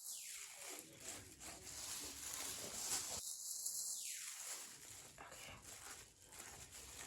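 Faint scraping and tapping of a plastic knife spreading bleach paste onto a wig's lace, over a steady hiss.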